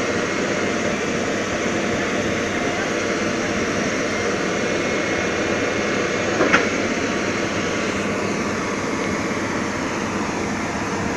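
A heavy machine's engine running steadily, with one short sharp knock about six and a half seconds in.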